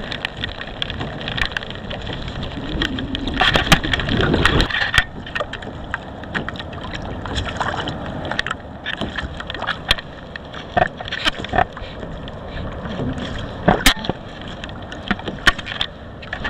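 Water sloshing against a kayak hull, with wind noise on the microphone and scattered sharp clicks and knocks. The noise swells for a second or two about 3 seconds in.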